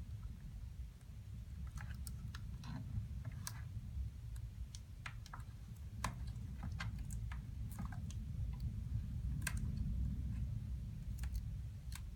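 Irregular small clicks and taps of hands fitting a replacement laptop LCD panel and handling the laptop's plastic parts, over a steady low hum.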